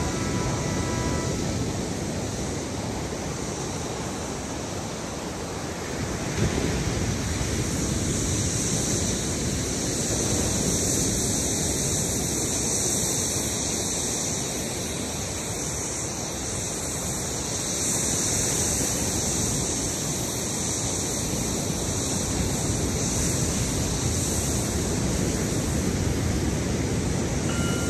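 Ocean surf and wind at the beach: a steady rushing noise that swells and eases every few seconds.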